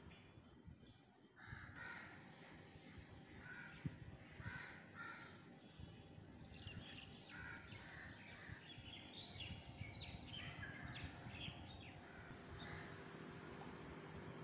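Faint bird calls in the background: a run of short repeated calls, then denser, higher chirping through the middle, with a single sharp tick about four seconds in.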